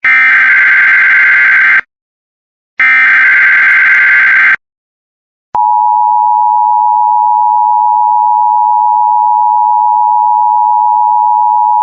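Emergency Alert System broadcast signal. First come two screeching SAME digital header bursts, each just under two seconds with about a second's gap. Then, about five and a half seconds in, the steady two-tone EAS attention signal begins and holds. Here it announces a Child Abduction Emergency (Amber Alert).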